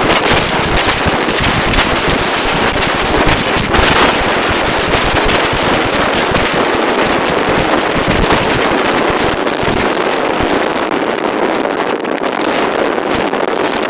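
Boeing 737-800's CFM56-7B turbofan engines at takeoff thrust close by, loud and crackling, with jet blast buffeting the microphone.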